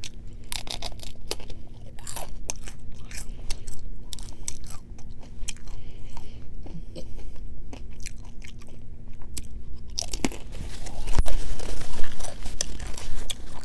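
A person biting and chewing food, with many short wet mouth clicks, louder for a couple of seconds about ten seconds in.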